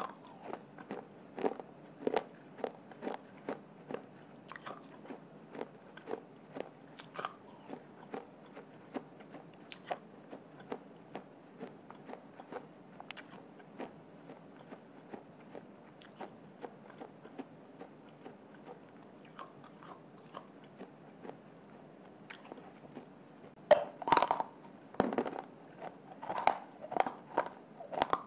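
A person biting and chewing mini clay pots and slate-pencil pieces close to the microphone. It is a run of sharp, crisp crunches, one or two a second, with a louder, busier cluster of crunching near the end.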